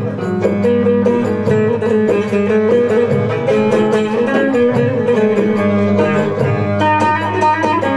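Long-necked bağlama (Turkish saz) playing an instrumental passage, strummed in quick strokes, with the melody moving over low ringing strings.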